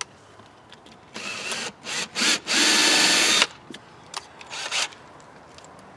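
Ryobi cordless drill run in a few short bursts, the last and loudest about a second long, finishing pilot holes in a travel trailer's thin corrugated sidewall.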